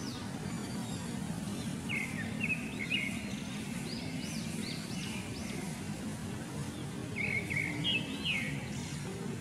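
Birds chirping in short bursts of quick whistled notes, three times, over a steady low background hum.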